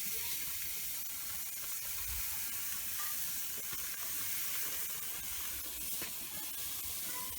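Beef kofta skewers sizzling on a hot, oiled pan: a steady hiss.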